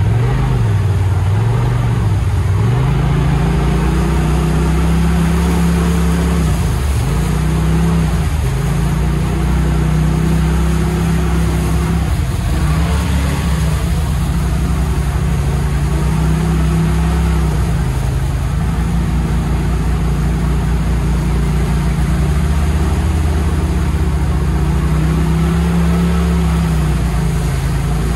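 Polaris RZR Pro XP Turbo side-by-side's turbocharged twin-cylinder engine running hard. Its pitch holds, then drops and climbs back several times as the throttle is lifted and reapplied.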